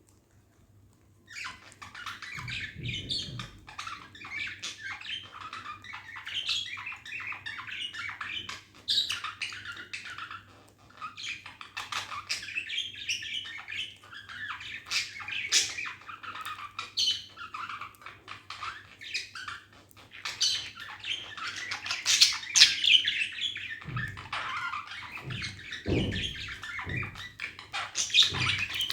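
Pet budgerigars chattering and warbling in a fast, continuous stream of high chirps and squawks, starting about a second in. A few low thuds come through underneath.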